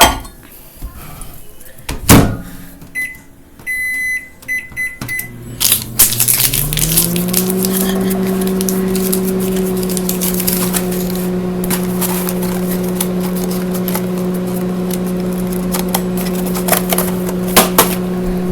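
Microwave oven started: a couple of knocks, a run of short keypad beeps, then the oven's hum coming on about six seconds in, rising in pitch as it spins up and then running steadily.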